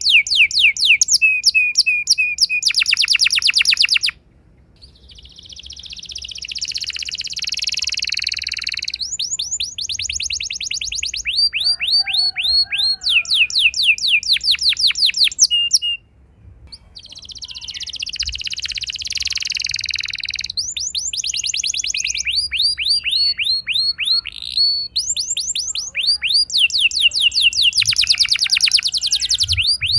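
Domestic canary singing a long song of fast repeated-note trills (rolls) and quick sweeping notes, with two hissy, buzzy passages. The song breaks off briefly about four seconds in and again around the middle, then carries on.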